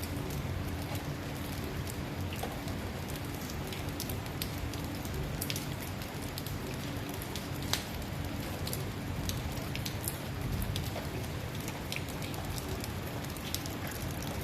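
Steady rain falling on a road surface, with a constant patter and many sharp individual drops ticking against a low rumble.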